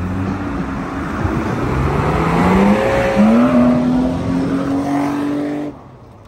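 A car engine revving hard as the car passes close on a snowy road: its pitch climbs, dips briefly about three seconds in, then holds high before the sound cuts off suddenly near the end.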